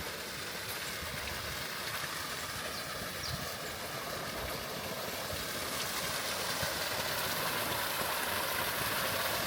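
Running water: a steady rushing hiss that grows slightly louder toward the end.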